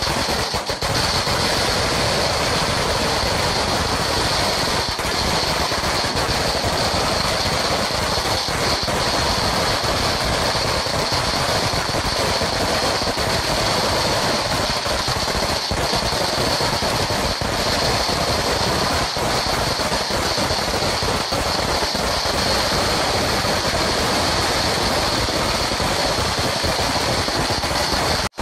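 Sinturon ni Hudas firecracker string going off in a dense, unbroken stream of rapid pops that merge into a steady crackle.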